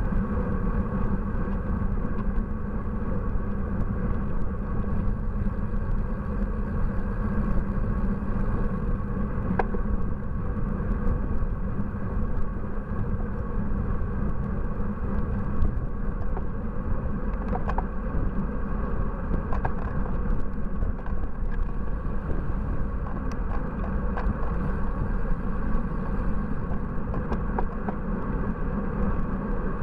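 Steady road and wind noise picked up by a camera mounted on a road bike while riding on asphalt, with a few light clicks and rattles along the way.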